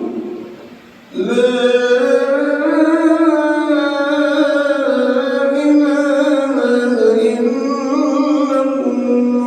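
A muezzin's voice chanting the adhan: after a short pause, one long melismatic phrase begins about a second in and is held with a wavering, ornamented pitch.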